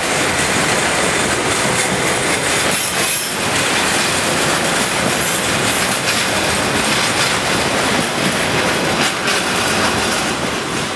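Container flat wagons of a freight train rolling past, a steady loud rumble with wheels clattering over the rail joints.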